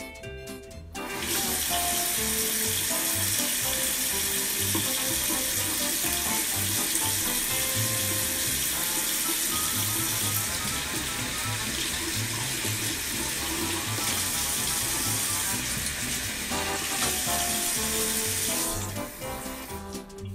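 Bathroom sink faucet running water into the basin, turned on about a second in and off near the end, over background music.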